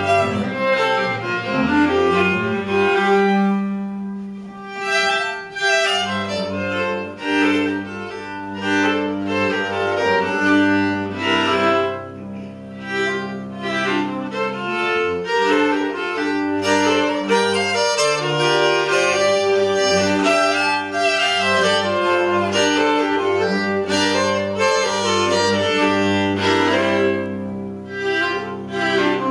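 Live acoustic string music: fiddle playing an instrumental tune in long held notes over an upright bass line.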